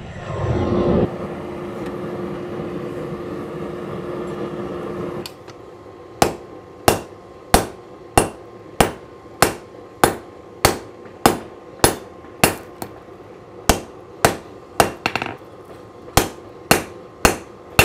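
Hand hammer striking a red-hot san-mai damascus knife blank on the anvil: about twenty even blows, roughly one every 0.6 seconds, forging the blade shape. They follow about five seconds of steady rushing noise with a low hum.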